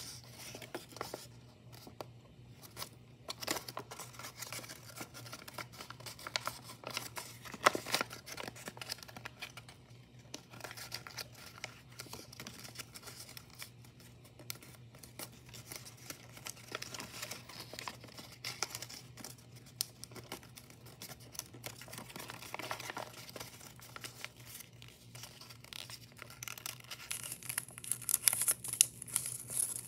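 Sheets of origami paper rustling and crinkling as hands fold and crease them, in irregular small crackles. A sharper crackle comes about eight seconds in, and the crinkling grows louder near the end.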